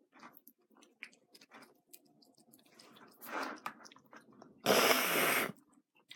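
Cats chewing food, heard as a run of small irregular clicks. About five seconds in comes a loud, even rush of noise lasting under a second.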